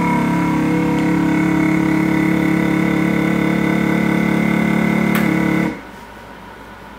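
Avid Armor USVX chamber vacuum sealer's pump running with a loud, steady hum while it draws the vacuum, then cutting off suddenly near the end as the machine switches to its sealing stage.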